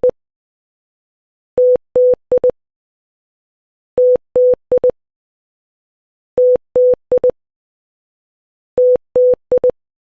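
Morse code for the Korean letter ㅌ (tieut), dah-dah-dit-dit, played as a steady single-pitch electronic beep. The group of two long and two short beeps comes four times, about every two and a half seconds, with a small click as each beep starts and stops.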